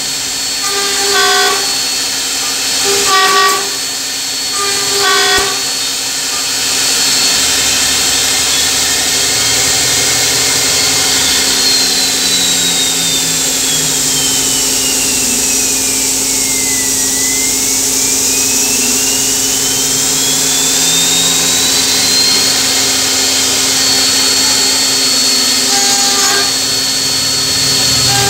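CNC tenon and slot machine running, its horizontal spindle's end-mill bit cutting a slot into the end of a wooden rail over a steady motor hum and high whine. Three short surges come in the first few seconds, then it runs evenly, with a slow whine that falls and rises again in the middle.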